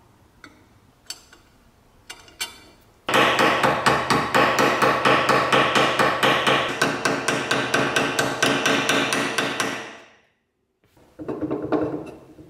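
Ball-peen hammer rapidly tapping a metal rivet on a cast-iron sad iron held on a vise, about four ringing blows a second, peening the rivet that fixes a handle bracket. A few light clicks come first, the hammering starts about three seconds in and stops suddenly near ten seconds.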